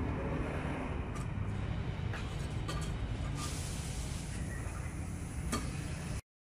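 Steady low background rumble with a few faint clicks, cutting off suddenly about six seconds in.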